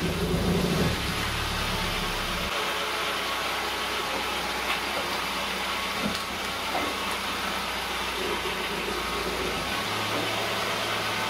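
A Kia Rio's engine idling steadily. The tail of rock music fades out about a second in.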